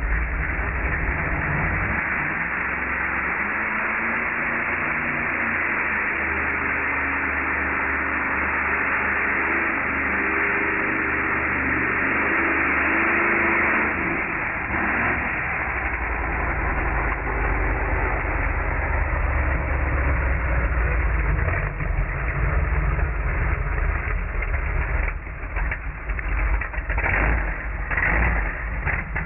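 Lifted off-road truck's engine revving hard through a dirt pit, its pitch climbing steadily for about the first fourteen seconds. It then drops and runs lower and more unevenly, settling toward idle near the end.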